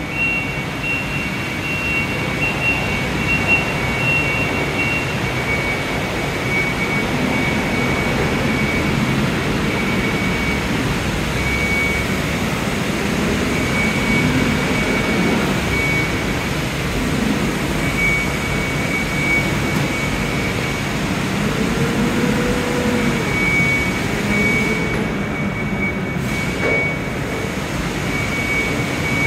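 Cat 2C5000 LPG forklift's engine running as it is driven around, with a high warning beeper sounding on and off. About three quarters of the way through, a whine rises and falls.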